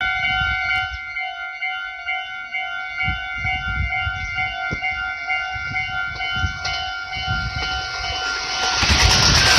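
Railway level-crossing warning bell sounding steadily as a Meitetsu 6500 series electric train approaches. The train's running noise swells in over the last second, with low rumbling gusts underneath.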